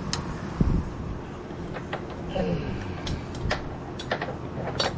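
Scattered sharp metal clicks and light knocks, with a dull thud under a second in, as the front wheel bushing and hardware of a Honda Reflex scooter are handled and fitted, over a steady low hum.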